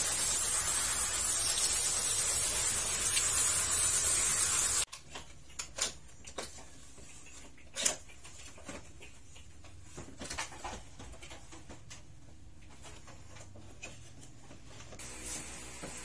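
A jet of water from a hose nozzle hissing steadily as it sprays an air conditioner's outdoor unit, cutting off abruptly about five seconds in. Then scattered clicks and knocks of plastic parts being handled on a wall-mounted indoor unit, the loudest a sharp knock a little before the middle.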